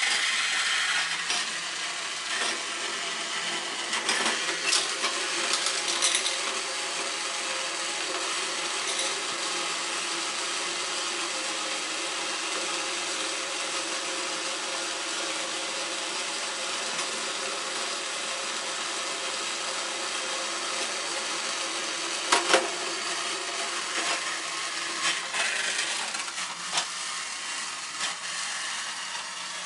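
Battery-powered Thomas & Friends Percy toy engine running along plastic track: a steady whirr of its small electric motor and gears, with its wheels rattling over the plastic. A few sharp plastic clicks and clacks cut in, the loudest about 22 seconds in.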